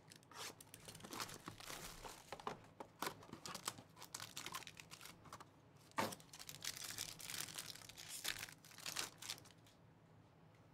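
Faint crinkling and tearing of 2023 Topps Composite football card packs' wrappers as the box is opened and a pack is ripped open, with one sharper click about six seconds in.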